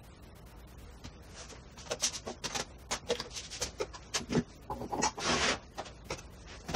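Quick run of knocks, clicks and rustles from leather pieces, a sword blade and small tools handled on a wooden workbench, sped up fourfold so the handling noises come fast and high-pitched, with a longer scraping rustle about five seconds in.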